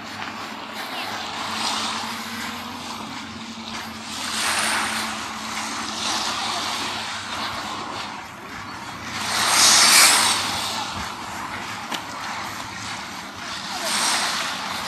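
Small sea waves washing onto a sandy beach in swells, the loudest about two thirds of the way through. A faint, steady engine hum runs underneath for the first half.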